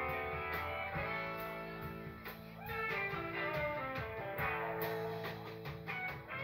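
Live band playing amplified electric guitars over bass and drums, with a steady drum beat, heard from within the audience.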